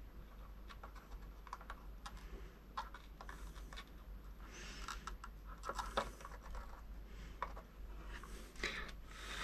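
Faint small clicks and scratches of hands fitting a plastic MT60 connector onto scooter motor wires while soldering, with a couple of short hissing sounds, about halfway and near the end.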